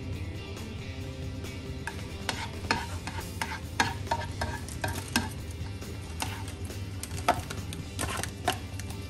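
A slotted spatula stirring and scraping chopped onions in a nonstick frying pan, tapping the pan in a run of sharp clicks from about two seconds in, over the faint sizzle of the onions frying in oil.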